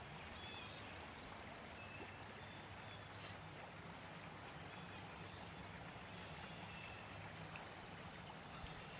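Quiet riverbank ambience: a faint, steady hiss of flowing stream water and air, with a few faint, short bird chirps now and then.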